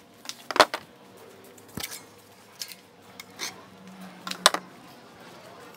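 Steel workshop parts being handled: a handful of separate, sharp metallic clinks and knocks, the loudest about half a second in and another near the end.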